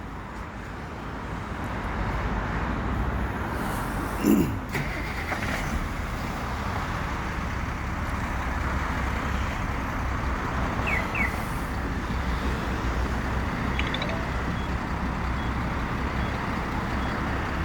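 Tata Daewoo Prima truck's diesel engine idling steadily after being remote-started from a smartphone alarm. A brief louder sound with a falling pitch comes about four seconds in.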